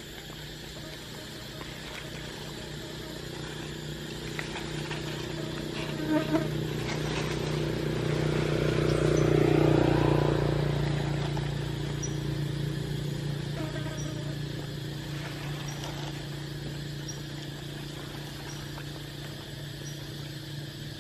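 Low, steady buzz of a flying insect, swelling to its loudest about halfway and then fading. A couple of short squeaky calls come about six seconds in.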